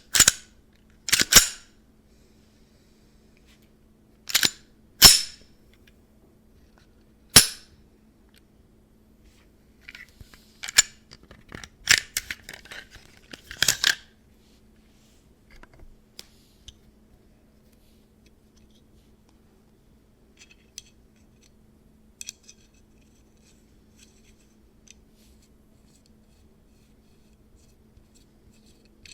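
Plastic parts of a 3D-printed PLA Glock 43x replica being taken apart and put together: sharp plastic clicks and snaps, five single ones in the first seven or so seconds, then a busier run of clicks and rattles about ten to fourteen seconds in, then only a few faint ticks.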